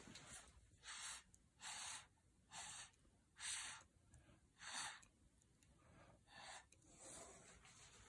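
Short puffs of a person's breath close to the microphone, about one a second.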